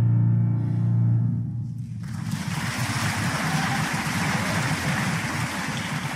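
A held final chord of a music piece dies away about a second and a half in, followed by a steady rushing noise for the rest of the time.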